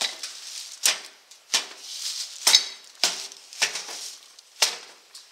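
Wooden board knocking against a sheet-metal mailbox as it is worked into place: about seven sharp, irregular clanks with a brief metallic ring.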